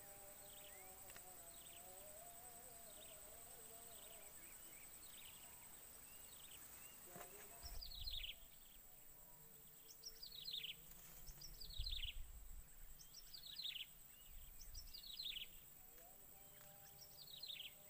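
A bird calling over and over, each call a quick falling chirp, repeated about every second and a half and louder from about halfway through. Under it are a faint steady high whine and a few low rumbles.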